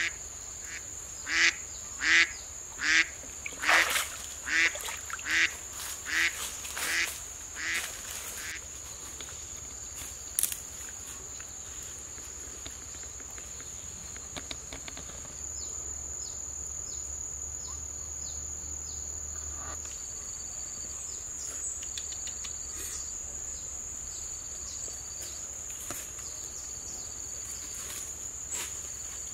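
A duck quacking over and over, about ten loud quacks a little under a second apart, stopping about eight seconds in. Steady high-pitched insect buzzing carries on throughout.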